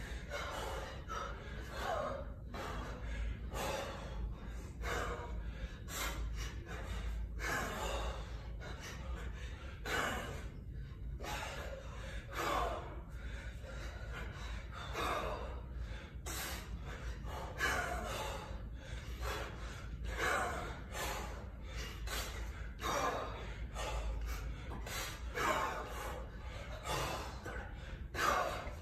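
A man's hard, rhythmic breathing while lifting a kettlebell for repetitions: a sharp, forceful breath comes about every two and a half seconds, in time with the reps, with smaller breaths between.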